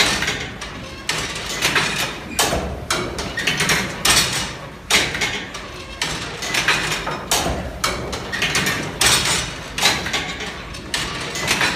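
Valve gear of a Newcomen atmospheric steam engine working, giving a string of sharp knocks and clanks at irregular intervals of about a second.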